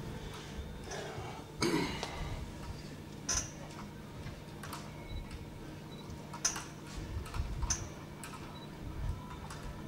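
Scattered metal clicks and clinks from a loaded barbell and iron weight plates on a bench-press rack as the bar is set up and gripped, with one louder clank a little under two seconds in, over a low steady room hum.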